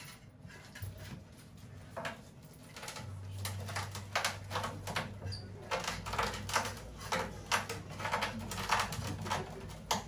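Free-improvised avant-garde jazz from a quartet of drums, double bass and two saxophones, played as sparse, irregular clicks, taps and scratchy noises rather than melody. A low held tone comes in about three seconds in beneath them.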